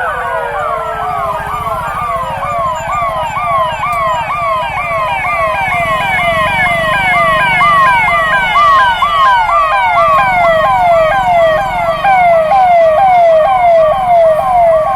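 Police vehicle sirens sounding loudly in a fast rising-and-falling yelp, about three cycles a second. In the first few seconds several sirens overlap, then one yelp dominates.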